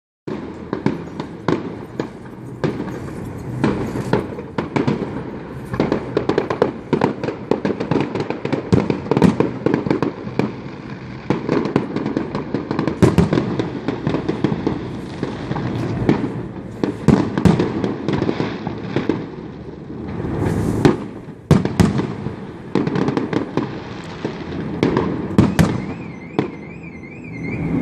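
Many fireworks going off in quick succession, a dense run of bangs and crackles with short lulls about twenty seconds in and near the end. A faint warbling electronic tone sounds in the last second or two.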